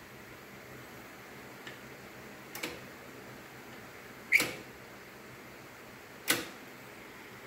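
Mousetrap clutch linkage on a 1975 Shovelhead being worked, giving a few sharp metallic clicks. The loudest comes about four seconds in with a short ring, and another about six seconds in, over a faint steady hum.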